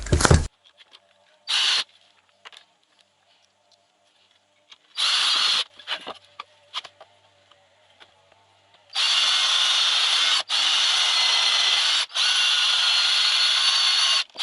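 A small power-tool motor runs steadily in three long stretches with two brief stops, starting about nine seconds in, after a couple of short scraping or handling noises.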